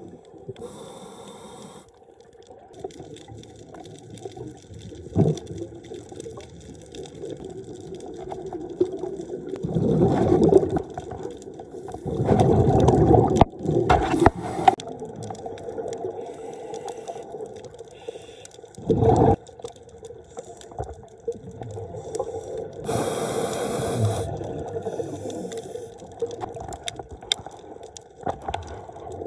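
Scuba diving ambience recorded underwater through a camera housing: a diver's regulator breathing, with spells of hissing inhalation and louder bursts of exhaled bubbles every few seconds over a steady muffled hum.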